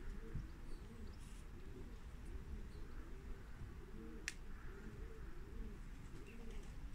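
Several racing pigeons cooing over one another, a continuous run of overlapping low coos. A single sharp click about four seconds in.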